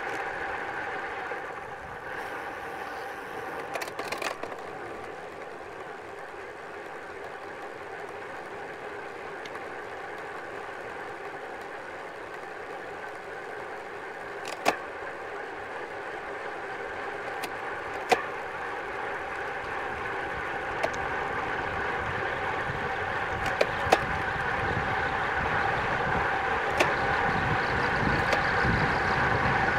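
Wind rush and tyre hum from a road bike descending at speed, with a steady whine, growing louder as speed builds and buffeting the microphone more near the end. A few sharp clicks come through along the way.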